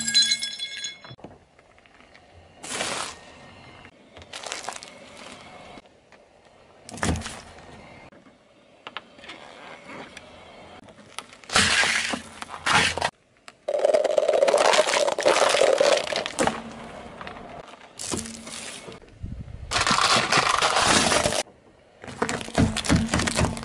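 A car tyre rolling over and crushing a string of small objects one after another, such as candies and matchboxes, which crack, crunch and break under the tread. There are about eight separate bursts of crunching, with quiet gaps between them; the longest lasts about three seconds, near the middle.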